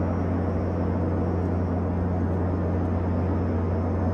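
Steady drone of an airliner's engines heard from inside the passenger cabin: a deep, even hum under a constant rush of air noise.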